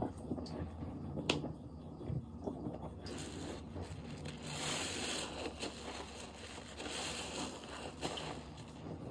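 Dish soap being worked by hand close to the microphone: irregular small wet crackles and light scrapes, with a denser hissing stretch about four to six seconds in.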